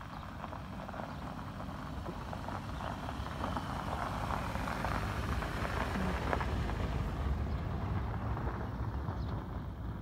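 A road vehicle passing, its rumble swelling to a peak a little past the middle and fading again.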